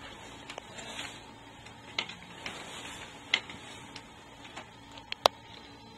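A handful of light, irregular clicks and taps over quiet room tone, the sharpest about five seconds in.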